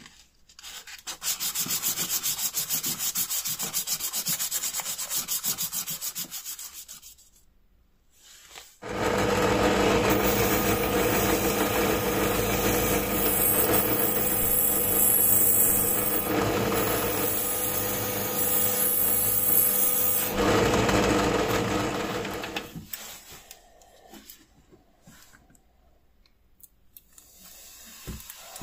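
Rapid back-and-forth strokes of a needle file rasping a small brass part, which stop after several seconds. Then a bench power tool's motor runs steadily with a pitched hum for about eleven seconds while a metal bell dome is worked on it, and winds down.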